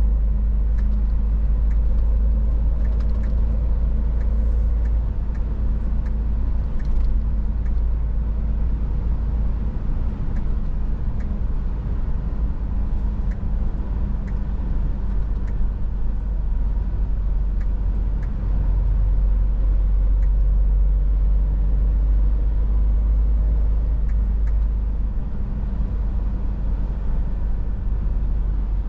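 Cab interior sound of a Scania S450 truck on the move: the 13-litre straight-six diesel runs with a steady low drone, mixed with road and tyre noise. The drone eases off for a while in the middle and picks up again as the truck pulls on.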